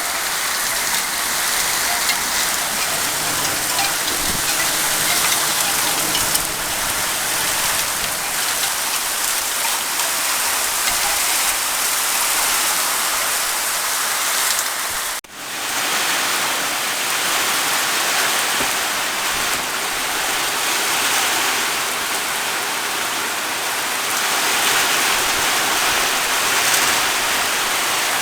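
Heavy thunderstorm rain pouring down steadily, with a brief break about halfway through.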